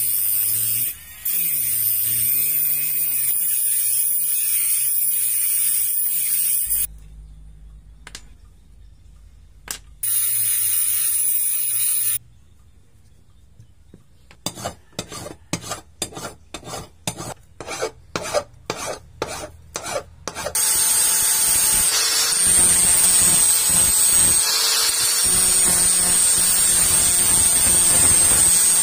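A small high-speed rotary tool whines as it cuts off the steel pins sticking out of a knife handle, running for several seconds, stopping, then cutting again briefly. After a pause comes a run of quick scraping strokes, about three a second, and from about three-quarters of the way in an angle grinder grinds steadily and loudly on the handle to shape it.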